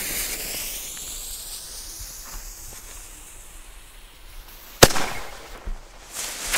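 Firework shell from an Xplode Galaxy 6 shell-tube set, its launch hiss fading as it climbs. About five seconds in it bursts with a loud bang, followed by a few smaller pops and a short hiss near the end.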